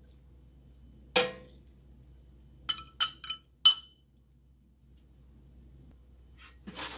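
A single knock about a second in, then a quick run of four or five sharp, ringing clinks a little before the midpoint: a glass bowl and metal tongs knocking against a stainless steel pan. Soft wet handling sounds follow near the end as the tongs move the marinated soft-shell crabs.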